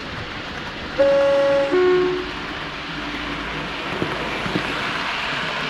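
Class 37 diesel locomotive's two-tone horn sounds once about a second in, a high note then a lower one. It is heard over the locomotive's steady running noise, and two short clicks come a couple of seconds later.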